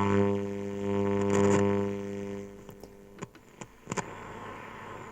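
1959 Ekco U353 valve radio giving out a loud mains hum, a steady drone with many overtones, which cuts off about two and a half seconds in, followed by a few sharp clicks. The hum is the sign of capacitors that need changing.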